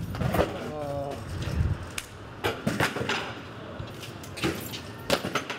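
BMX bike riding on concrete: a low tyre rumble for the first second and a half, with a voice calling out about a second in, then a string of sharp knocks and clacks from the bike's impacts.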